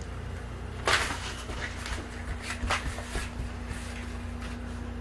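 Toddler moving about on a wooden floor and handling a plastic bag: a sharp knock about a second in, then a few light clicks and rustles over the next two seconds, over a steady low hum.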